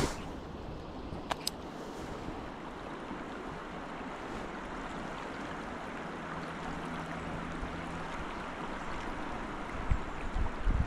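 The River Tay running high after rain, its fast water rushing steadily. There are a couple of sharp clicks just over a second in and a few low thumps near the end.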